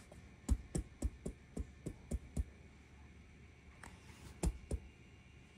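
Light, quick taps, about three a second, then a few more after a pause a little past halfway: a person tapping with a hand to coax a dog over.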